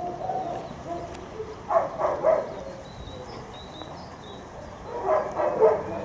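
A dog barking in two short bouts of a few quick barks each, about two seconds in and again near the end.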